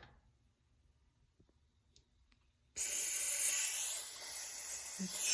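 Raw chicken going into a hot pan: after near silence the sizzling starts suddenly about three seconds in and carries on as a loud, even hiss.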